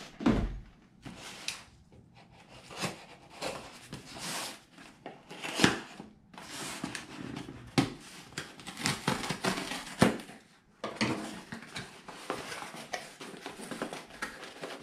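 Cardboard shipping boxes being handled and opened: several knocks as boxes are set down and moved on a wooden desk, with rustling, scraping and tearing of cardboard and packing tape.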